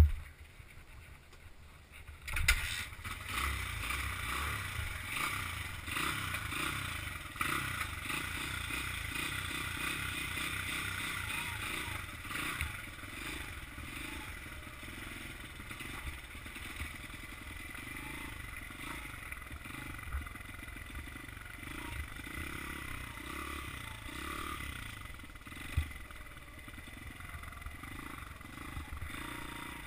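Honda CRF100F dirt bike's small four-stroke single-cylinder engine running as the bike is ridden. It comes in about two seconds in, after a sharp knock, and then holds fairly steady.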